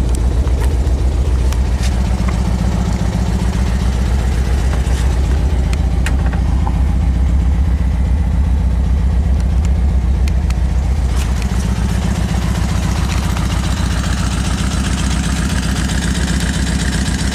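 Volkswagen Karmann Ghia's air-cooled flat-four engine idling steadily.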